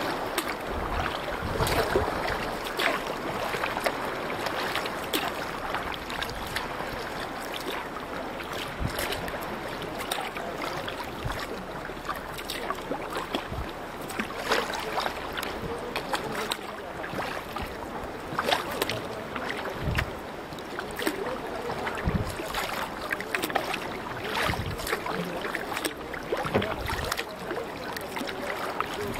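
Sea water splashing and sloshing around a paddled canoe, with frequent irregular splashes and a few low thumps.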